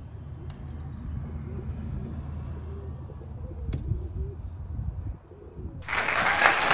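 Hens in a nest box making low, crooning murmurs over a steady low hum. About six seconds in, a much louder burst of noise cuts in suddenly.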